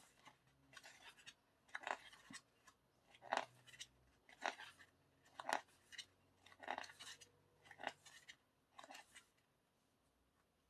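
Paper pages of an album photobook being turned one after another, a faint rustle about once a second.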